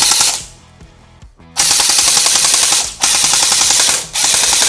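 JG M4 carbine electric gel blaster firing in full-auto bursts, its gearbox cycling rapidly: a short burst at the start, then after about a second's pause three bursts of about a second each with brief breaks between them.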